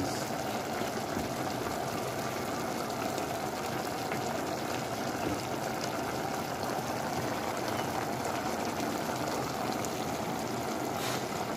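Pot of cow-foot and cow-head stock boiling on the stove: steady bubbling.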